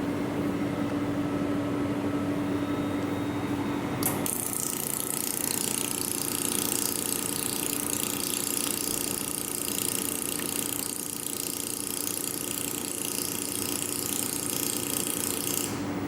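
Pulsed laser welder firing on a mold: it starts suddenly about four seconds in with a dense, high-pitched hiss and crackle that runs for about twelve seconds, then cuts off abruptly. Before it starts, the machine stands by with a steady hum.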